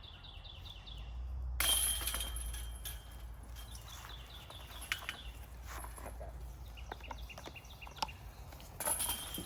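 A bird calling in quick trilled series of short chirps, repeated several times. A rush of outdoor noise comes in abruptly about a second and a half in, with a few faint ticks.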